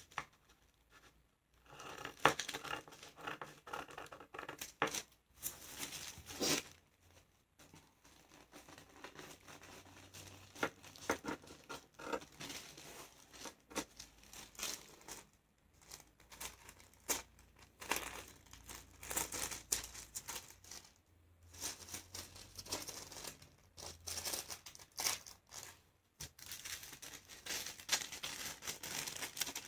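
Scissors cutting through two layers of folded tissue paper, with the paper rustling and crinkling as it is handled, in short stop-start bursts.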